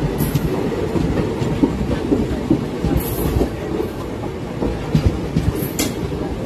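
Passenger train coaches running alongside at close range: a steady rumble of wheels on track with irregular clickety-clack over the rail joints, and a couple of sharp metallic clanks about three seconds in and near the end.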